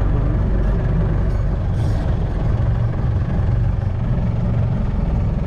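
Safari jeep's engine running steadily with road rumble while driving along a paved road.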